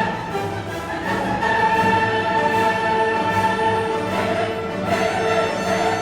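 Background music: orchestral and choral classical music with sustained voices and strings.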